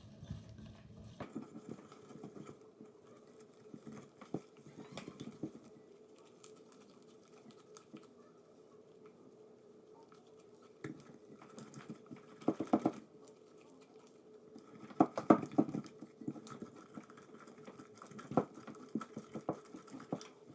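Homemade glue slime, activated with Tide detergent and still a little sticky, being kneaded and squeezed by hand. It makes small wet clicks and squishes, with several louder bursts of rapid clicking in the second half.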